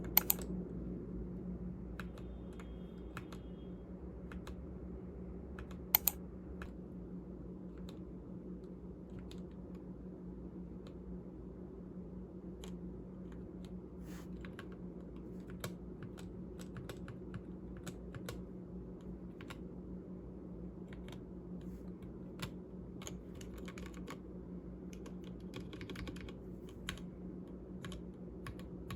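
Keys being typed on a stock Akko 3087 mechanical keyboard with Gateron Pink 43g linear switches: scattered keystrokes, sparse at first and more frequent in the second half, with two louder clacks near the start and about six seconds in. A steady low hum runs underneath.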